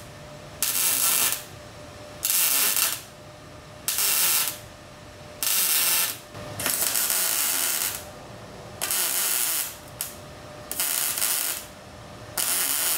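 Overhead stitch welding on a car's floor pan: a welding arc crackles in about nine short beads, each half a second to a second long, with brief pauses between them. The beads stitch-weld reinforcing plates where the seat mount tore the floor.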